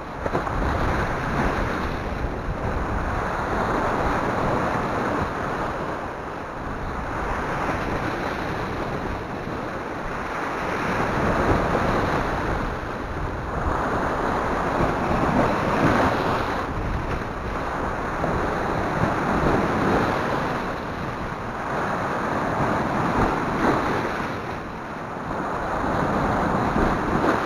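Sea swell surging up and washing over a rocky shore, the rush of foaming water swelling and easing every few seconds.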